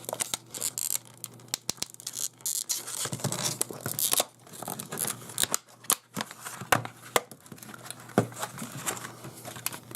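Packaging being opened and handled by hand: irregular tearing and crinkling with many small clicks and taps.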